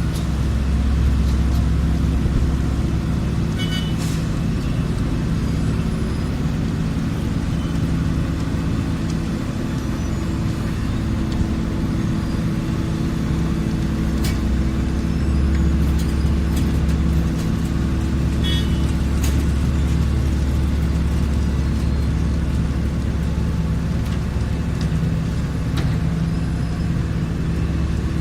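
Heavy diesel engine of a road milling machine running steadily at a constant speed, with a couple of brief higher-pitched squeaks or clicks.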